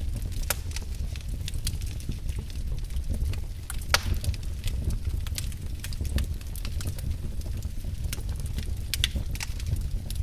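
Wood fire burning in a fireplace: irregular crackles and pops over a steady low rumble, with one louder pop about four seconds in.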